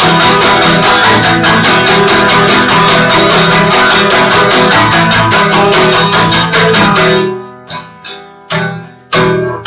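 Acoustic guitar strummed in fast, even strokes. About seven seconds in the strumming breaks off into a few single strums that ring out and fade, then the fast strumming starts again near the end.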